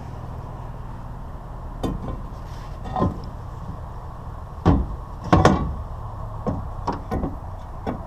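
Scrap items being shifted and set down in the back of a vehicle: a series of knocks and clunks, the loudest two near the middle, over a steady low hum.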